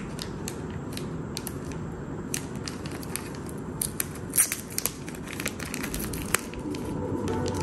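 Plastic packaging bag crinkling and crackling as fingers peel it open, in many sharp irregular crackles, the loudest about four and a half seconds in.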